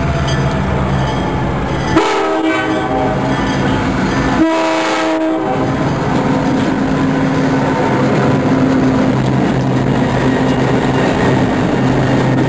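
A CSX diesel freight locomotive passing close by. Its horn sounds twice, a longer blast about two seconds in and a shorter one about four and a half seconds in, then the diesel engine and the rolling train carry on steadily as it goes past.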